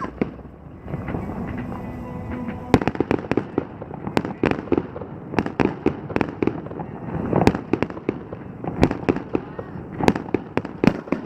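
Fireworks display: after a quieter opening, a rapid, dense volley of sharp firework bangs and crackles starts about three seconds in and keeps going, several reports a second.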